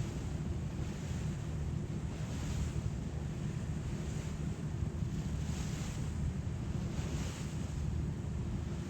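Passenger ferry underway: its engines drone steadily beneath the rush of water along the hull, with wind on the microphone. The hiss swells and fades every second or two.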